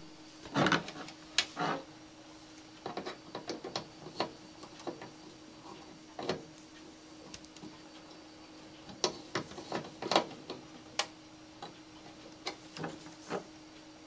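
Small clicks and rustles of thin wire being handled and hooked onto the screw terminals of a garage door opener, in short scattered clusters, over a faint steady hum.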